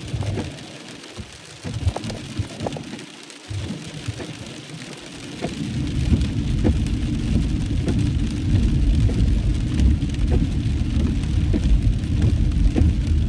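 Heavy rain pelting a car's roof and windshield, heard from inside the moving car, scattered drops ticking over a low rumble. The rumble drops away for a few seconds near the start and comes back about six seconds in.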